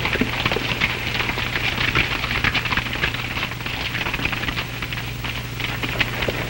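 Hooves of several horses clattering on stony ground as a group of riders moves along, a dense, irregular patter of many hoofbeats.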